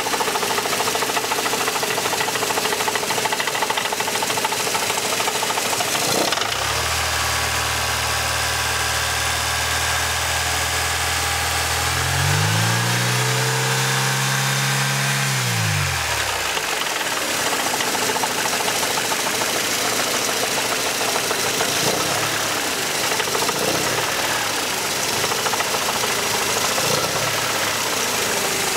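Mercedes M102 2.3-litre four-cylinder engine running at low revs with a rattling knock. The owner has ruled out the exhaust heatshields and the flex plate, and his mechanic suspects a bottom-end fault such as a worn big-end bearing. A low drone joins in after a few seconds, rises in pitch about halfway through, then falls away.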